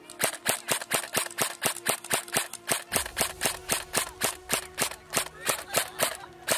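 Airsoft gun firing a steady string of rapid single shots, about four a second.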